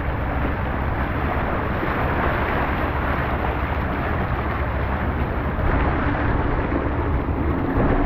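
Steady rush of wind buffeting the microphone, with water and motor noise, aboard a moving boat.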